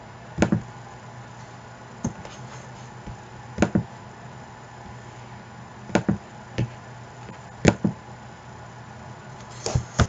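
Computer mouse clicks: short, sharp clicks every second or two, often in quick pairs, with a quick run of clicks near the end, over a faint steady hum.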